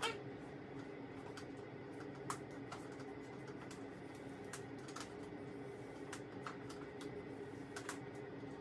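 Irregular light clicks, roughly one a second, from a flat iron clamping and sliding through long straight wig hair, over a steady low hum.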